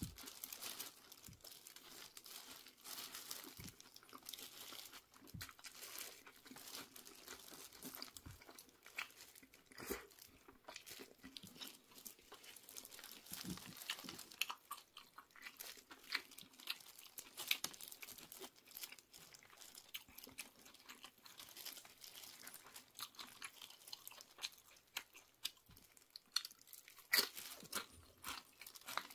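Close-up crunching and chewing of tortilla chips, many irregular crisp crunches, with crinkling of the paper wrapper under a plastic-gloved hand as chips are picked up.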